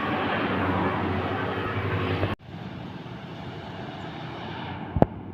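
A tour bus passing close by, its engine and road noise loud, cut off abruptly a little over two seconds in. Quieter traffic noise follows, with one sharp knock near the end.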